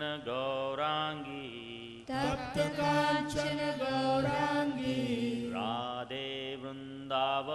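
A man and a woman singing a slow Hindu devotional chant (kirtan), drawing out long held notes, over a steady harmonium drone.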